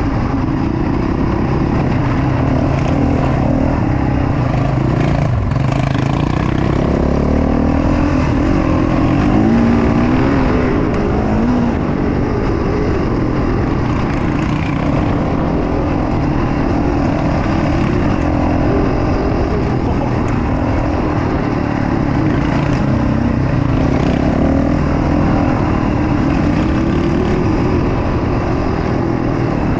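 Quad bike engine running while riding along a dirt trail, its pitch rising and falling with the throttle, over a constant rumble of engine and track noise.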